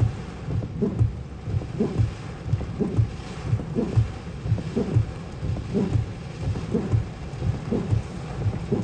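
Heavy thunderstorm rain and wind on a car, heard from inside the cabin, with a low thump repeating about twice a second.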